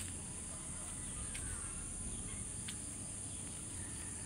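Insects, crickets or cicadas, trilling steadily in one continuous high-pitched band, with a low rumble and a few faint clicks underneath.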